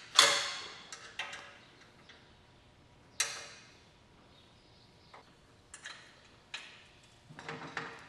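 Sharp metallic clanks and clicks of a wrench on bolts and a steel caster plate as caster wheels are bolted onto a steel cart frame. There are a few separate knocks with short ringing, the loudest just after the start, and a quick run of small clicks near the end.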